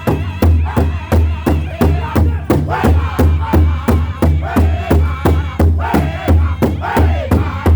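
Powwow drum group singing a chicken dance song: a large shared drum struck in a fast, steady beat under high-pitched, wavering group singing.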